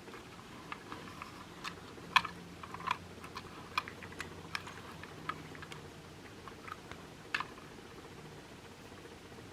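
Irregular light clicks and taps at an uneven pace, sharpest about two seconds in and again near seven and a half seconds, over a faint low hum.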